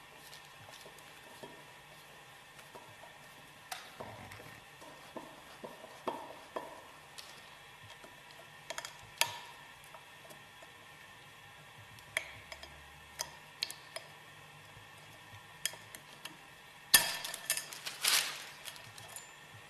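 Light metallic clicks and scrapes of a screwdriver and screws working an old polyamide gasket out of the groove of a steel separator annular piston. Near the end comes a louder burst of clattering as metal tools are handled.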